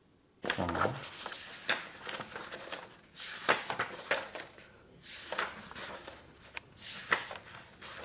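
Pages of a thick printed document being turned by hand: paper rustling in a run of swishes and crackles, starting about half a second in.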